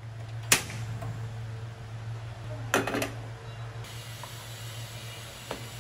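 Kitchen stove-top sounds: a steady low hum under a metal spoon clinking against a frying pan, once sharply about half a second in and in a quick run of clinks about three seconds in.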